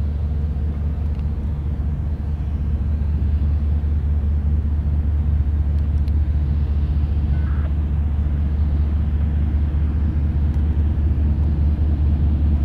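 CSX diesel-electric freight locomotives rumbling at low speed with a steady low engine drone, growing a little louder as they approach.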